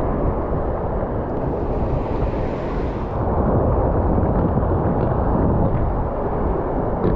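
Ocean surf washing over rocks, with wind rumbling on the microphone. A louder hissing wash swells about a second and a half in and falls away about three seconds in.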